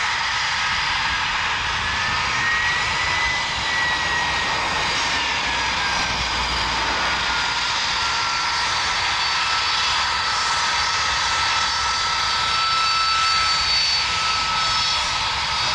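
Harrier GR9's Rolls-Royce Pegasus turbofan running steadily as the jet taxies: a loud rushing jet noise with a high whine that rises slightly in the first few seconds, then drops back and holds steady.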